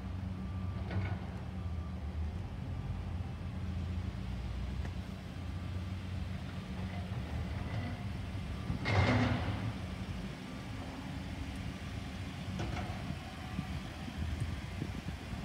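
Ford F-150 pickup's engine idling steadily with a low hum, with a brief whooshing swell about nine seconds in.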